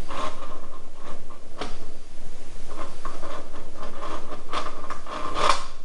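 Rubbing, scraping and light clicking of hands working grease into a motorcycle's steering-head bearings and races, with a steady faint tone underneath.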